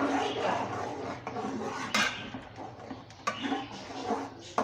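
Spoon stirring semolina halwa in a kadhai, scraping around the pan with a few sharp knocks against its side.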